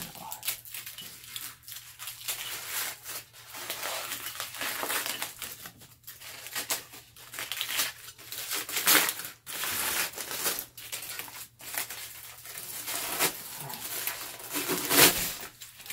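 Aluminium foil wrapping being pulled apart and crumpled by gloved hands: an irregular run of crinkling and crackling, with louder crunches about halfway through and near the end.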